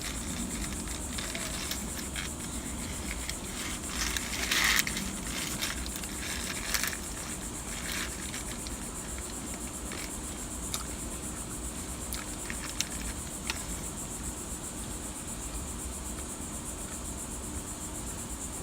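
Eating a crunchy hard-shell taco: a few loud crunching bites about four to five seconds in and again near seven seconds, then scattered small crunches and wrapper crinkles. A steady high-pitched buzz and a low hum run underneath.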